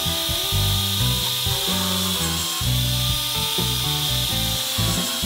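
Electric drill in a drill stand running and boring holes into plywood, under background music with changing bass notes.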